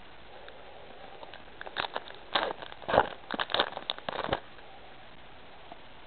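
Foil wrapper of a Pokémon trading card booster pack crinkling and tearing open: a burst of sharp crackles starting about two seconds in and lasting a couple of seconds.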